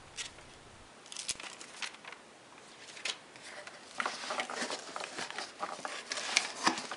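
Cardboard shipping box being handled by hand: scattered rustles, scrapes and light knocks as the flaps are folded back and the box inside is shifted, busier from about four seconds in.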